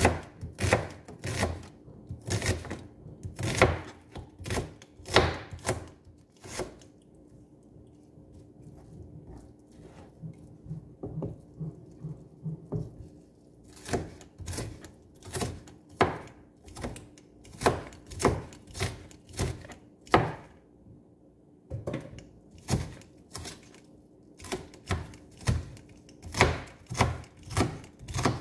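Chef's knife cutting through an onion and striking a cutting board in irregular taps, one to three a second, with a pause of several seconds about a quarter of the way in.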